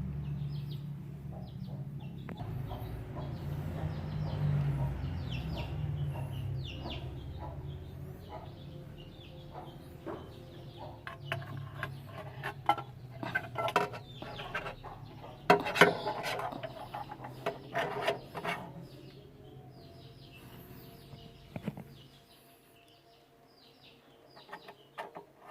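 Hands fitting a diesel engine's fuel filter and hoses: scattered clicks and knocks of plastic and metal parts, busiest in the second half, with chickens clucking in the background. A low hum runs underneath and cuts off near the end.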